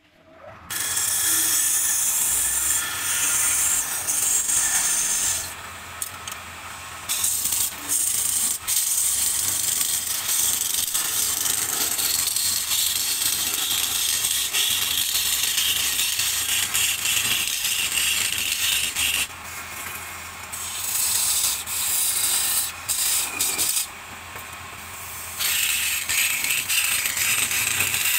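Gouge cutting a spinning wooden blank on a wood lathe: a steady scraping hiss of shavings peeling off the wood. It starts abruptly and breaks off briefly three times before resuming.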